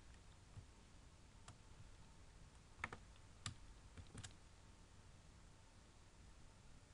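A few faint, scattered computer keyboard key presses and clicks while text is deleted and pasted; the two loudest come about three and three and a half seconds in.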